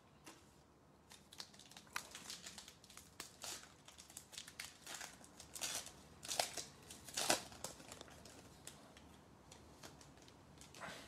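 Foil wrappers of 2020 Panini Select football card packs being torn open and crinkled by hand: a faint run of irregular crackles and rustles, loudest in the middle and thinning out near the end.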